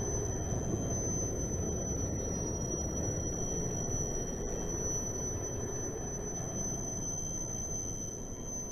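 Steady low rushing rumble of a strong blast of wind, with a thin high whine held over it; it slowly fades near the end.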